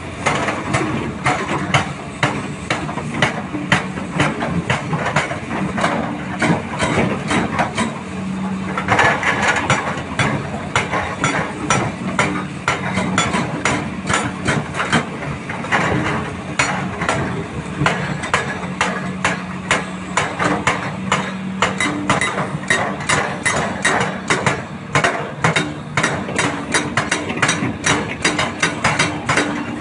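Hydraulic rock breakers on a Doosan DX300LCA and a Hyundai HX340SL excavator hammering hard rock in rapid, continuous strikes. Under the hammering the excavators' diesel engines run steadily.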